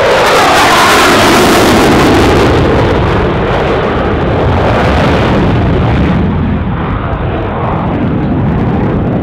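Loud jet noise of an F-16 fighter's single turbofan engine at display power as it passes, the pitch falling during the first few seconds, then easing off a little as the high hiss drops away about six seconds in.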